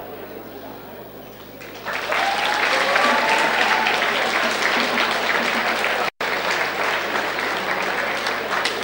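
Audience applauding, starting about two seconds in and holding steady, with a cheer rising above the clapping soon after it begins. A split-second dropout in the recording cuts through the applause about six seconds in.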